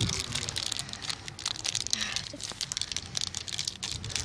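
Plastic sweet packet crinkling and crackling rapidly as it is handled in the fingers.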